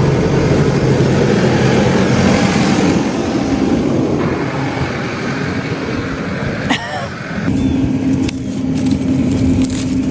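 Tractor engine idling steadily out of gear, with a short sharp knock about seven seconds in, after which the hum sounds thinner and steadier.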